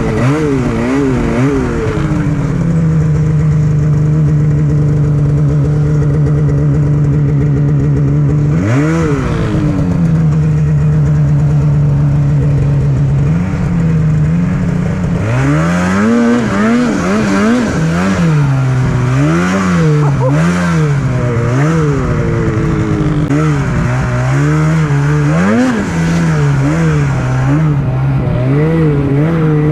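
Snowmobile engine running hard and revving, held at a steady high pitch for a few seconds at a time in the first half, then rising and falling quickly again and again through the second half as the throttle is worked.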